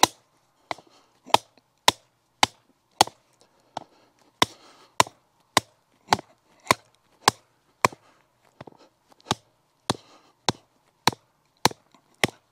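Hammer blows on the top of a 2x2 wooden stake, driving it into the ground: a steady run of sharp strikes at about two a second, with a few lighter taps among them.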